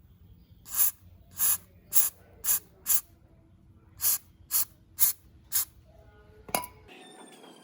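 Nine short hissing bursts of spray, five in quick succession, then a brief pause and four more, about two a second. Near the end comes one sharp click.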